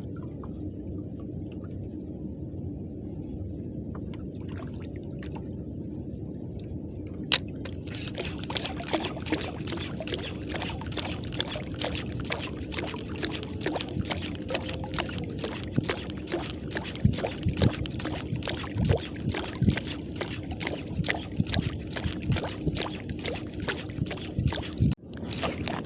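Boat engine running steadily with water sloshing against the hull. A sharp click comes about seven seconds in, then fast, irregular clicking and rattling as the spinning reel is cranked while jigging the metal jig. It cuts out briefly near the end.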